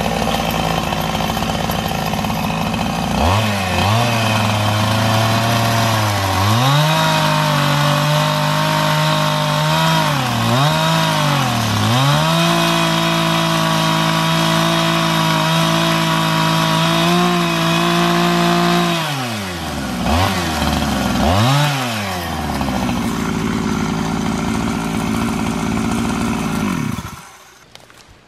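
Two-stroke chainsaw engine idling, then run up and held at high revs, its pitch sagging briefly a few times. It drops back, is blipped twice, runs lower for a few seconds and cuts off near the end.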